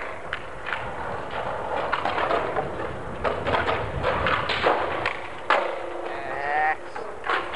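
Skateboards rolling on paving with a run of clacks and knocks as boards pop onto and grind along a stone ledge, the loudest knock about five and a half seconds in. Near the end a person lets out a short, wavering high call.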